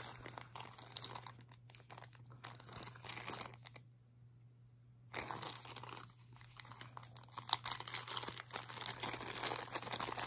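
Crinkling and rustling of a small plastic zip-lock bag being handled and opened, with a brief pause about four seconds in.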